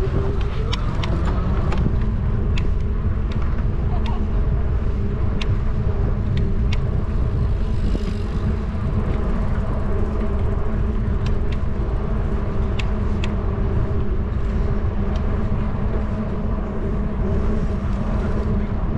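Riding noise from a bicycle rolling along a concrete path: a steady low rumble of wind and tyres with a constant hum underneath and scattered sharp clicks.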